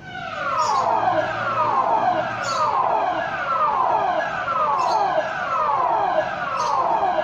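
Public emergency warning siren sounding in a system test. It starts suddenly and repeats a falling tone, each sweep dropping in pitch over about a second.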